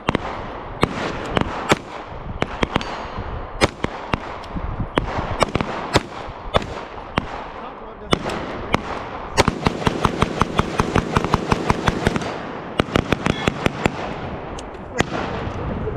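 Pistol gunfire at an outdoor shooting pit: many sharp shots at irregular spacing, overlapping as if from more than one shooter, with a quick string of about six shots a second just past the middle.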